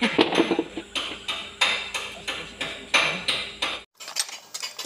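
Hammer blows on metal, about three a second, each with a short metallic ring. Near the end the sound cuts off abruptly and lighter, quicker metal taps follow.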